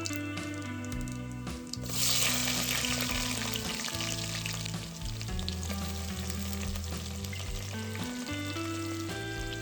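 Food frying in hot oil in a pan: a loud sizzle starts suddenly about two seconds in, then eases to a steady frying sizzle.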